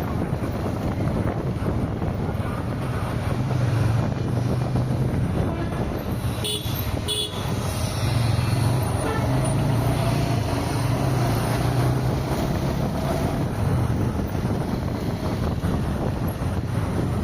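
Steady road and wind noise with a low hum from a car driving along a highway. A vehicle horn beeps twice, briefly, about six and seven seconds in.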